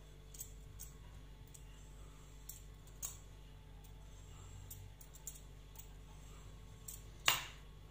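Potato peeler scraping strips of skin off a zucchini: faint, irregular light clicks and scrapes, with one louder scrape near the end.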